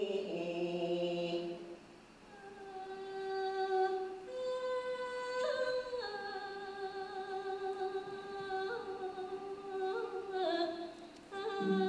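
A woman's voice singing a slow, long-drawn Thai su khwan blessing chant, holding each note for a second or more and sliding between pitches, with a short break about two seconds in and another near the end.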